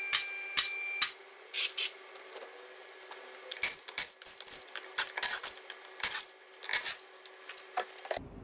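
Car lift raising the car, its motor whining steadily under the clicking of its safety catches about twice a second, and stopping about a second in. Then irregular metallic clicks, knocks and scrapes of hand work as the front wheel is taken off.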